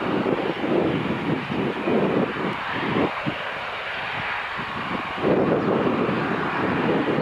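Boeing 737's CFM56 turbofan engines at take-off thrust during the take-off roll: a steady jet noise. Irregular gusts of wind buffet the microphone over it and let up for about two seconds midway.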